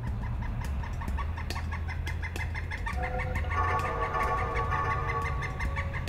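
Male pileated woodpecker giving its long, rapid series of loud 'wuk-wuk-wuk' calls, about five notes a second. Held musical tones come in under it from about halfway.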